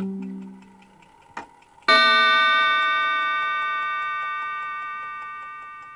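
The last guitar chord fades out. About two seconds in, a single bell chime strikes and rings on, dying away slowly over faint regular ticking.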